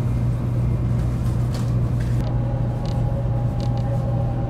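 Steady running rumble inside the cabin of a Taiwan High Speed Rail train. About two seconds in, a steady two-note electrical whine joins it.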